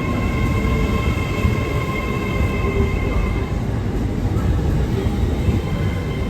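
A train running close by: a loud, steady low rumble with a steady whine of several high tones over it.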